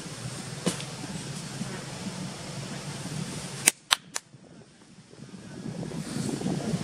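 Three sharp cracks in quick succession, about a quarter of a second apart, over a steady low background rumble; the background drops away briefly after them and then returns.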